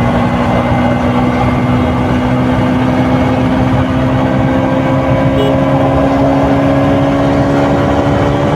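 KTM RC 200's single-cylinder four-stroke engine running through its stock exhaust while riding, the revs climbing slowly and steadily.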